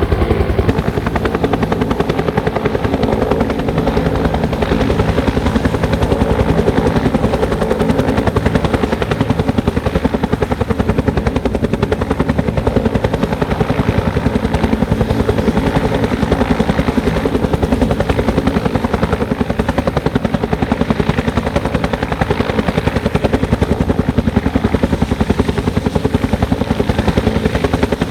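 Bell 205 helicopter running steadily, its two-bladed main rotor beating rapidly and evenly throughout.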